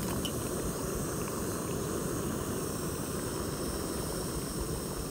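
Canister gas stove (Meva Spark) burner roaring steadily at high flame on a butane/propane cartridge, with a small pot of water on it at the boil.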